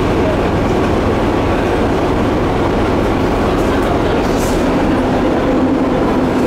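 Ferry's diesel engine running with a steady rumble, heard from the open deck close by.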